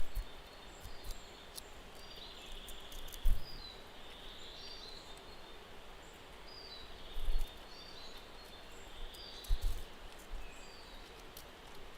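Small birds chirping and trilling over a steady outdoor hiss, with a few short low bumps.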